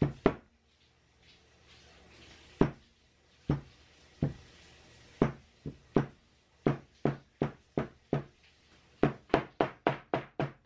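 A small metal hammer tapping a sewn chrome-tan leather seam flat on a cutting mat: about twenty dull knocks, spaced out at first, then a quicker run of about four a second near the end.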